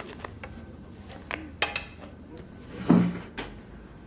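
Light clicks and knocks of tableware being handled, one with a short ringing clink, then a louder, heavier knock about three seconds in.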